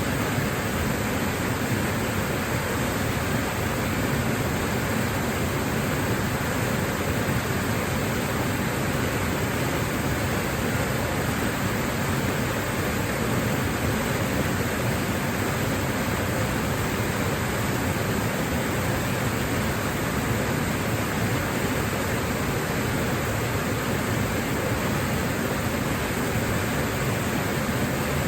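Waterfall, the falling water rushing steadily without a break.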